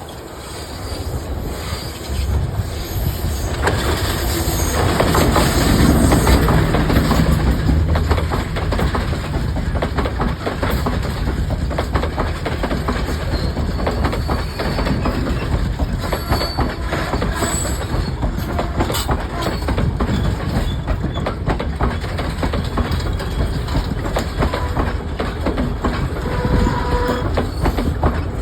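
Train running on the rails, its wheels clattering with dense, rapid knocks. It grows louder over the first few seconds and then stays loud and steady.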